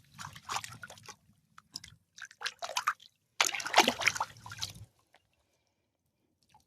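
Creek water splashing and sloshing as a piece of petrified wood is rinsed off by hand. It comes in three bursts, the loudest about three and a half seconds in, and cuts off about five seconds in.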